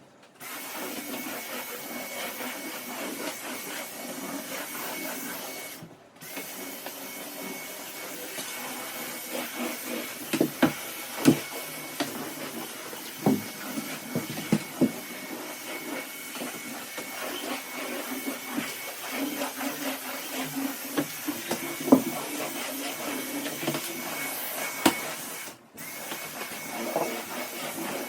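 Vacuum cleaner running steadily with a faint high whine, cutting out briefly twice, with scattered knocks as it bumps against things.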